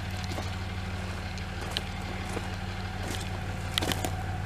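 Dodge Ram 3500 pickup truck idling steadily, with a few scattered crunches and clicks of footsteps on dry dirt.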